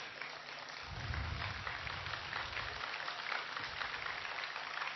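Audience applauding, a dense crackle of many hands clapping, with a low rumble for about two seconds near the start.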